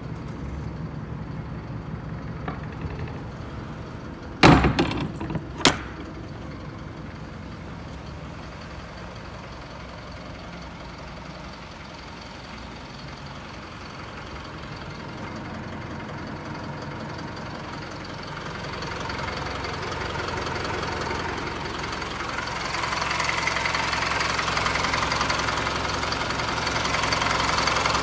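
Isuzu Elf truck's diesel engine idling, getting louder and clearer over the last third as the open engine bay comes close. About four and a half seconds in, two sharp bangs a second apart, the truck's cargo-box door being shut.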